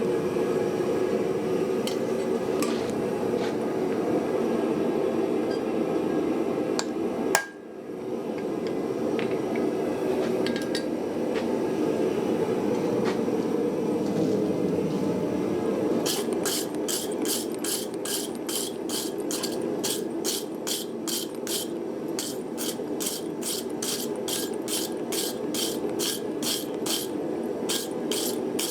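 A lit forge keeps up a steady roar. About halfway through, a hammer starts striking metal on the anvil in a regular rhythm, two to three blows a second.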